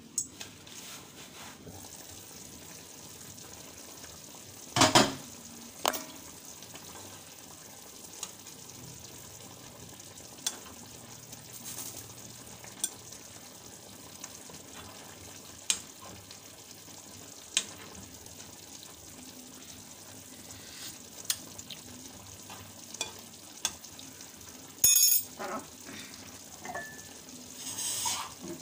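Food sizzling steadily in a pan of milkfish, eggplant and green chilies cooking for paksiw, with a metal spoon clicking against the pan now and then. There is a louder metal clatter about five seconds in and another near the end.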